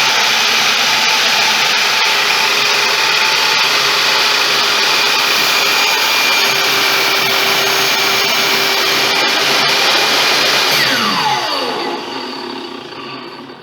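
Electric woodworking power tool running steadily at full speed, then switched off about eleven seconds in, its pitch falling as the motor and cutter spin down.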